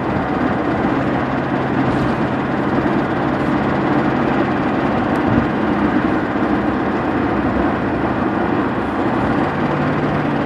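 The 4.6-litre V8 of a 1999 Ford Crown Victoria Police Interceptor running steadily at low speed. The owner reports a rhythmic knocking or tapping from this engine, which began while the oil level was low.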